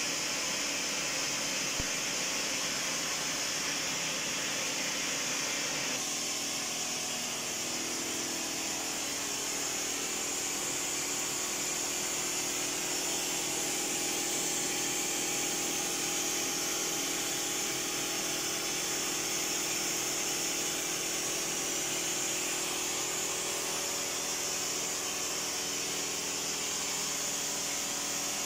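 Glassworking bench torch burning with a steady, even hiss while glass tubing is worked in its flame.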